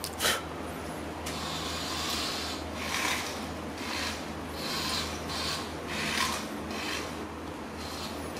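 A remote-control toy car driven in short spurts across a tile floor, its small motor and plastic gears giving a raspy whirr that starts and stops every half second to a second. A sharp click comes just after the start.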